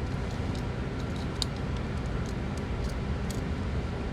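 Faint, sharp clicks and ticks of a Victorinox Huntsman Swiss Army knife being handled, its tools and scales knocking lightly, over a steady low background hum.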